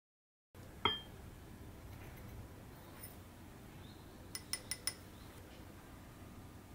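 A sharp glassy clink with a short ring about a second in. About three seconds later come four quick light clinks, within half a second, of a whisk against a glass mixing bowl as it starts stirring dry flour.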